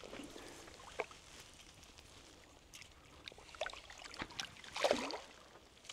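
Creek water splashing and trickling, with a brief louder splash a little before five seconds in and scattered light clicks.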